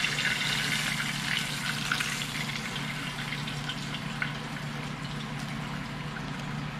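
Hot pan-fried pompano and the oil in the frying pan still sizzling and crackling with small pops as the fish is slid from the pan onto a plate, the sizzle slowly dying down over a low steady hum.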